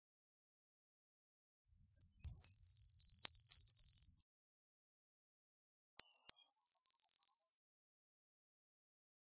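Eurasian blue tit singing two song phrases, each a few high thin notes dropping into a fast, lower trill. The first, about two seconds in, is the longer; the second comes about six seconds in.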